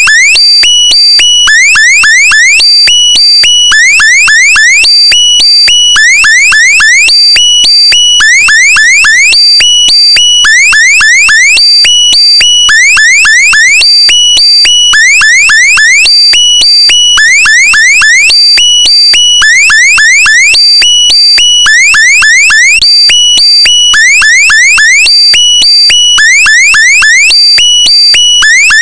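Very loud electronic alarm sound repeating the same short cycle about every two seconds: a quick run of rising sweeping tones, then steady high beeps.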